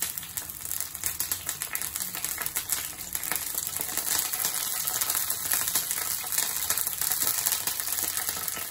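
Curry leaves and a bay leaf spluttering in hot oil in a frying pan: a dense, steady run of crackles and pops, stirred with a spatula.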